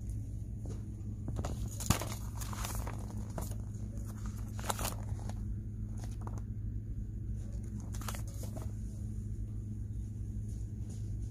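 Pages of a paperback book being handled and flipped, giving short papery rustles with a sharp click about two seconds in, over a steady low hum.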